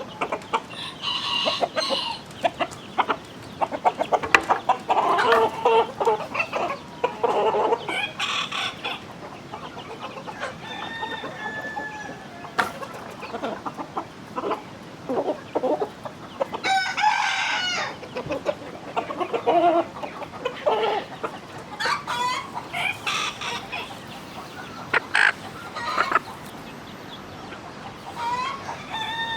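A flock of domestic chickens clucking in short, irregular calls, with one longer, louder call about halfway through, likely a rooster crowing.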